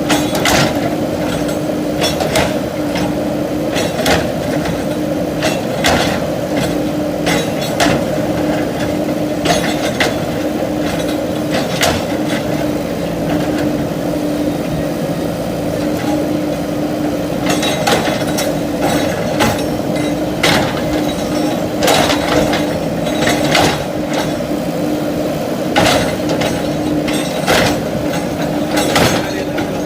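JCB 3DX backhoe loader's diesel engine running with a steady hum, under frequent sharp knocks and clatter as the machine breaks down brick walls and rubble falls.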